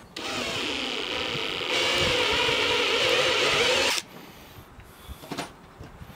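Cordless drill boring a hole through a thick white nylon plate. It runs steadily for about four seconds, gets louder partway through, then stops.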